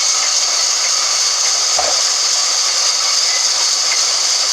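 Band sawmill running steadily, a constant high-pitched rushing noise with no breaks.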